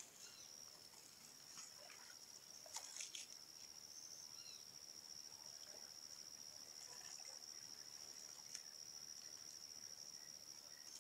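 Faint, steady high-pitched insect trill, with a few soft splashes about three seconds in.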